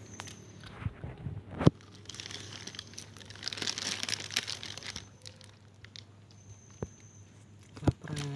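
Plastic bag of dry cat food crinkling and rustling for about three seconds in the middle, with a few sharp knocks from handling before and after.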